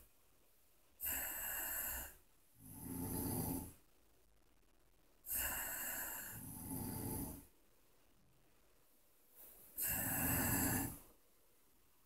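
Two sleeping people snoring in tandem: about five snores, each one to two seconds long, with short quiet gaps between.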